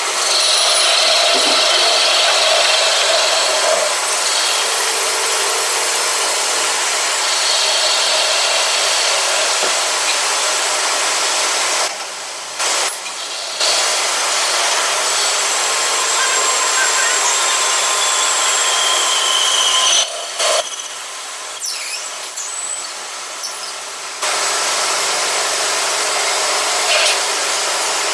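Machine tool running and cutting metal, a steady loud grinding noise with thin high tones at times. It stops briefly twice partway through.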